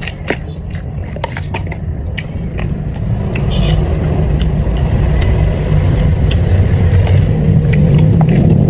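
Small sharp clicks and smacks of eating and utensils over a steady low motor-vehicle engine rumble, which grows louder about three seconds in.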